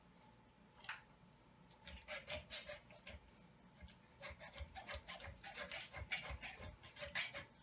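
Kitchen knife sawing through a raw chicken's wing joint on a wooden cutting board. A single click comes about a second in, then from about two seconds in a fast, uneven run of short rasping strokes with dull knocks on the board.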